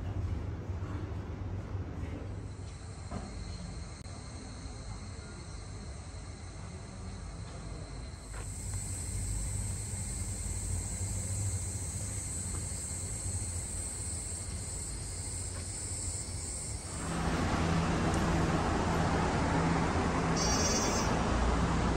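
A low steady hum, then a steady high-pitched drone of insects. About seventeen seconds in, a louder, even rushing noise takes over.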